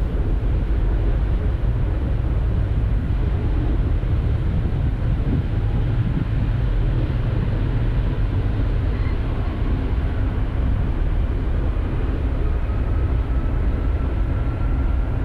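Airbus A330 jet engines running at low power as the airliner taxis: a steady deep rumble, with a faint whine that rises slowly in pitch over the last few seconds.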